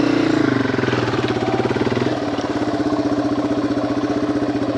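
Yamaha TW200's single-cylinder four-stroke engine running at low revs with a steady pulse; its pitch swells slightly at the start, eases down over the first couple of seconds, then holds steady.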